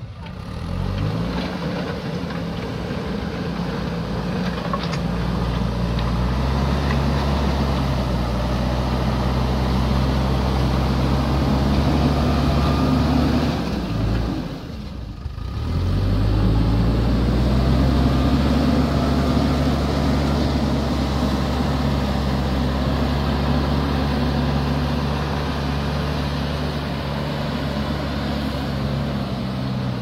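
JCB backhoe loader's diesel engine working under load. It revs up about a second in, drops away briefly about halfway through, then revs up again and runs steady.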